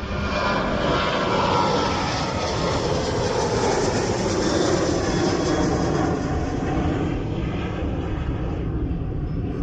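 An aircraft passing close by, its engine noise swelling and then easing, with a pitch that falls steadily as it goes past.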